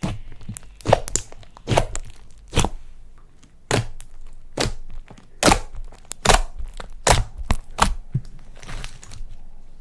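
Slime being worked by hand, with a sharp click or pop about once a second.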